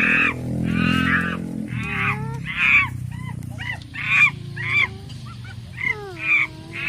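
Domestic geese honking repeatedly, a run of short harsh calls about one or two a second, with a low steady drone under the first couple of seconds.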